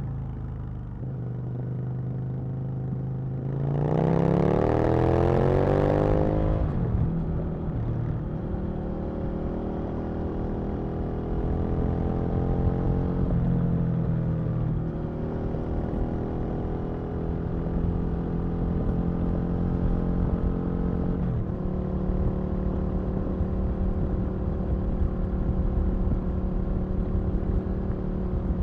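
Aprilia RSV Mille's V-twin engine riding under way: about four seconds in it revs up hard and loud, the pitch climbing steeply for a couple of seconds before falling away, then it runs at fairly even revs with two brief dips in pitch later on.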